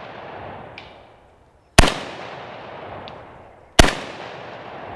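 Two shots from a Krebs Custom VEPR 12 short-barreled 12-gauge shotgun firing Remington 00 buckshot high-brass shells, about two seconds apart. Each is a sharp, loud report followed by an echo that rolls away over a second or more.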